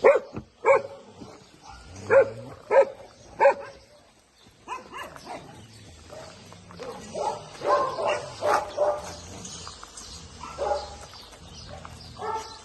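Dogs barking: a run of short, sharp barks in the first few seconds, then more barking and yelping from about five seconds in.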